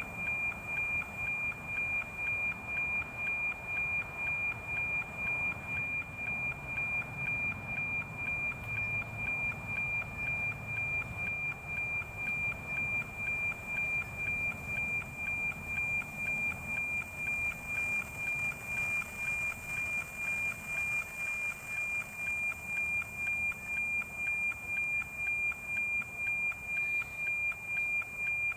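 NOAA 19 weather satellite's APT image signal, received by an RTL-SDR radio and demodulated as audio: a steady high tone that ticks rhythmically about twice a second, one tick per image line, over a hiss of static.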